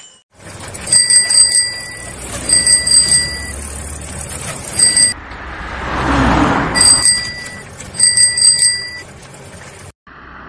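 A van's engine rumbles low while a high ringing tone sounds in about five separate bursts of up to a second each. The van's noise swells as it passes about six seconds in.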